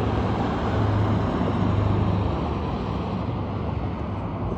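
Steady background rumble with a low hum under an even hiss.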